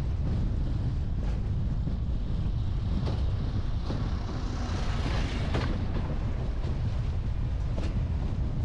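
Wind buffeting the microphone: a steady low rumble, with a hiss that swells from about three to six seconds in.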